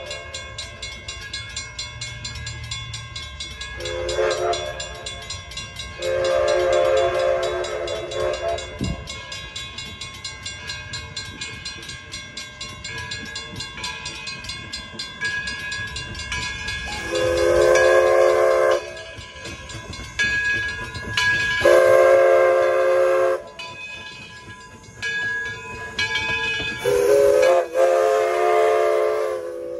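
Edison No.1 4-4-0 steam locomotive's whistle, sounding a chord of several notes, blown repeatedly. Near the end it gives a long, long, short, long pattern: the grade-crossing signal. Under the blasts runs a steady ringing beat, about two to three strikes a second.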